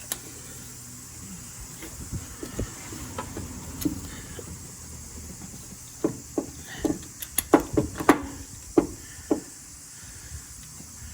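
A run of about a dozen sharp, irregularly spaced clicks and knocks in the second half, over a steady faint hiss: hand tools being handled during spark plug replacement work.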